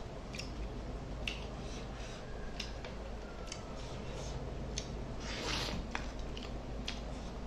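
Fingers squeezing and mixing rice with fish curry on a steel plate: small wet clicks and squishes, with one longer, louder squish about five and a half seconds in.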